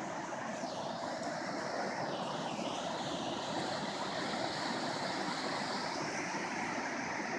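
A river in spring flood rushing through rapids: a steady, even roar of fast-moving water.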